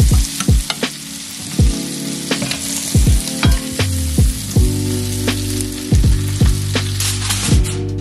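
Chicken pieces frying and sizzling in a cast-iron skillet as they are turned with tongs, with background music under it: steady chords and a beat of deep drum hits.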